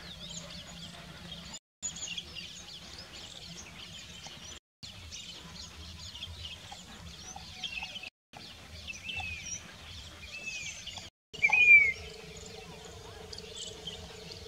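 Many small birds chirping and calling together, with one loud slurred call near the end. The sound cuts out briefly four times.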